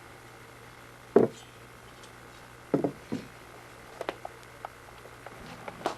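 Three dull knocks, then a quick run of sharp clicks and taps from the second half on: parts and tools being handled during work on the motorcycle's steering-head bearings.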